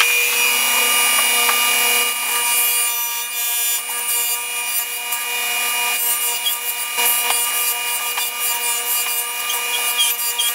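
Table saw running with a steady whine while its blade nibbles at a firewood chunk that is rolled by hand across it, cutting a tenon a little at a time. From about two seconds in, the cutting noise rises and falls unevenly over the motor's hum.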